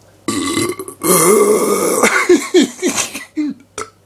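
A person burping loudly: a short burp about a third of a second in, then a long drawn-out belch that breaks up into a string of short croaks falling in pitch.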